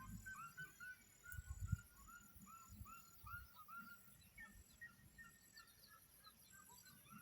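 Faint birds calling in open country: a run of short, repeated chirping notes, about two a second, busiest in the middle.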